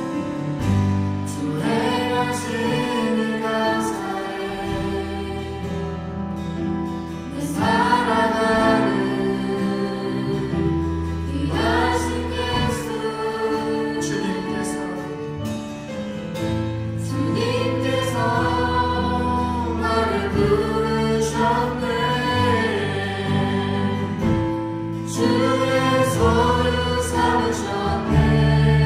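Church worship band and vocalists performing a praise song: sung melody over sustained chords and a bass line.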